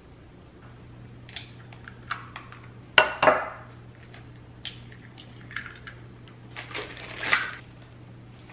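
Making muffin batter in a glass mixing bowl: eggs are tapped and cracked against it, giving a loud pair of sharp clinks about three seconds in. Then a spoon clinks and scrapes in the bowl while stirring.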